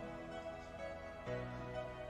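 Soft instrumental background music, sustained chords that change about a second in.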